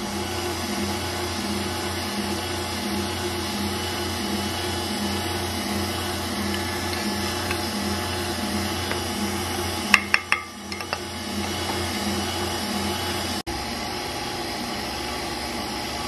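Electric stand mixer running steadily with a wire whisk, beating eggs and sugar into a pale foam for a sponge-cake batter, with a regular pulse as the whisk turns. A few sharp clicks come about ten seconds in.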